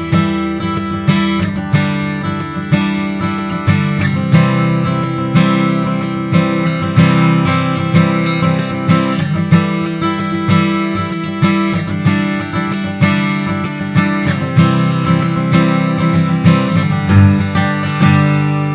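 Martin DCPA5K dreadnought cutaway acoustic guitar, with koa-pattern HPL back and sides, strummed in a steady rhythm of about three strokes every two seconds, the chords changing as it goes. Near the end the last chord is left ringing and fades.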